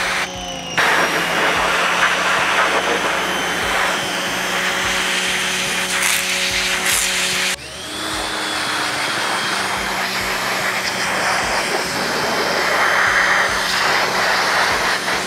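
Giraffe Tools Grandfalls electric pressure washer running under load, a steady motor whine over the hiss of the water spray. The sound drops out briefly near the start and again about seven and a half seconds in, then picks up with the motor pitch sliding into place.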